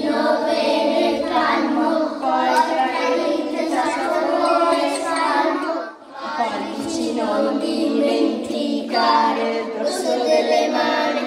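Young children singing a rhyme together, with a brief pause about six seconds in.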